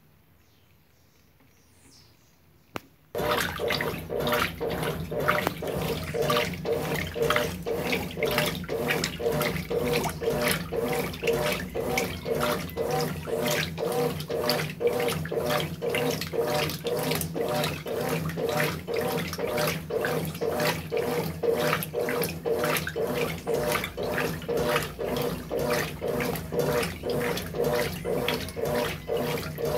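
Brastemp BWT12 12 kg top-loading washing machine starting to agitate about three seconds in, just after a single click: the agitator swishes the clothes and water back and forth in a steady rhythm over the hum of the motor.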